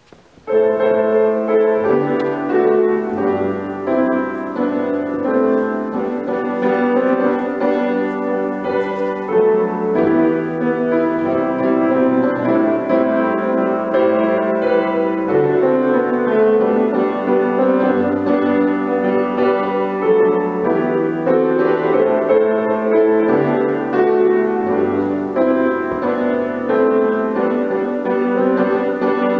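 Grand piano playing chords, starting about half a second in.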